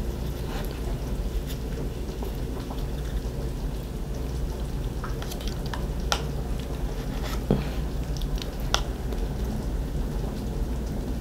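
A fork clicking and scraping on a plate a few times while someone eats, the clearest clicks in the second half, over a steady low hum.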